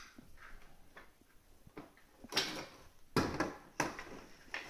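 Scattered knocks and clacks of plastic toys being handled and bumped together, the loudest a little after two seconds and again just after three seconds.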